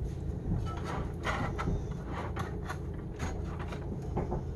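Metal spatula scraping and clinking against a cast iron skillet as diced fried potatoes are turned, a series of short irregular scrapes and taps over a low steady background hum.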